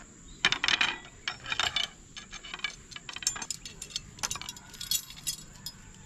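Black metal camping tripod poles clicking and clinking as the sections are fitted together and the head is handled, with its hanging chain and S-hook jangling. The clicks come in irregular clusters, the loudest in the first two seconds.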